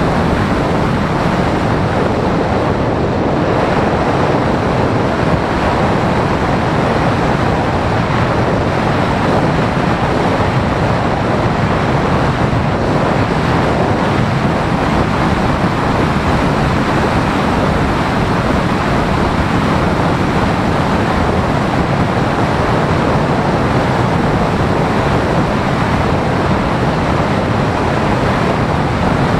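Steady rushing wind noise from airflow buffeting the microphone of a camera mounted on an RC glider in flight.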